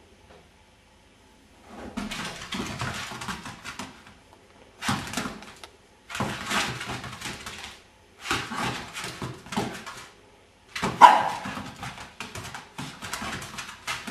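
Staffordshire bull terrier puppy barking in repeated bursts, starting about two seconds in, the loudest burst about eleven seconds in.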